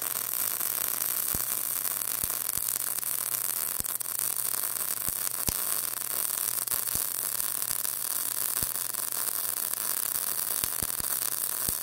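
MIG (GMAW) welding arc burning steadily: a continuous sizzling hiss with irregular sharp crackles and pops. The bead is being laid at an extreme drag angle.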